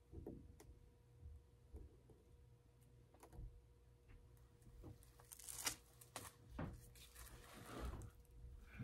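Near silence: faint scattered clicks and light rustling of handling, a little louder about halfway through and again near the end, over a steady low electrical hum.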